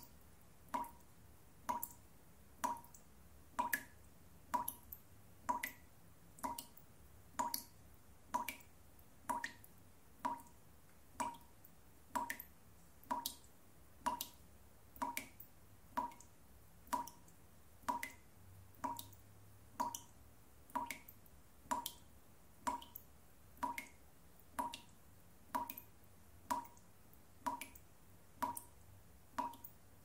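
A dripping tap: single water drops falling at an even pace, a little faster than one a second, each a short plink.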